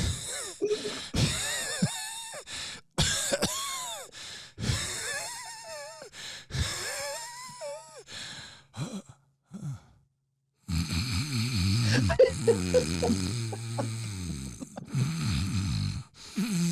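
A man imitating bedroom sounds with his voice: short, high-pitched squeals and whimpers that slide up and down, then, after a brief pause, low rasping groans that sound like snoring.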